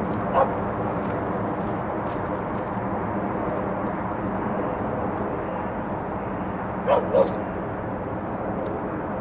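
Steady distant rumble of an Airbus A340-300's four CFM56 turbofan engines as the airliner passes overhead. Three short, sharp calls cut through it, one near the start and a close pair about seven seconds in.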